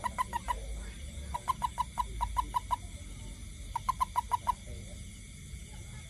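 A hand-held toad chirping in quick bouts of short, clear chirps, about six a second, three bursts with pauses between. These are the release calls a toad gives when it is gripped around the body.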